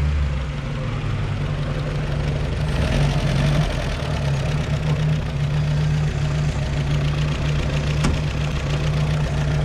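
Off-road vehicle's engine running steadily at a low, even drone; the low note shifts slightly about half a second in.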